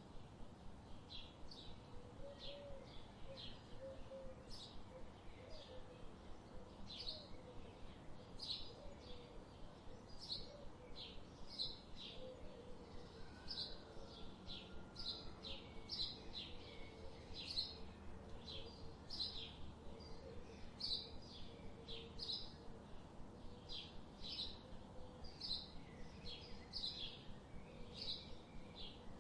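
Small birds chirping, short high chirps repeating one or two a second without a break, over a faint low steady background noise.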